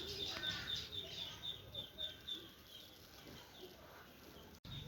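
Chickens calling: a rapid, even series of short high peeps, about four a second, fading out about halfway through, with a few softer, lower calls among them.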